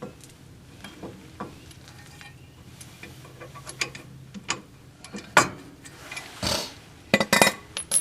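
Metal tools and parts clinking and knocking as they are handled during brake and hub work, with scattered light clicks and a few sharp metallic clanks in the second half, plus a brief scraping rustle.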